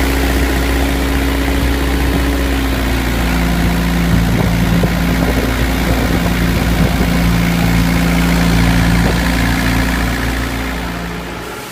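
Rubber crepe rolling machine running, a steady low mechanical drone whose hum shifts in pitch about three seconds in and fades out near the end.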